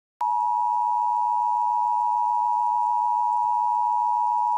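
Emergency Alert System attention signal: a steady two-note tone that starts a moment in and holds without change, marking the start of an emergency alert.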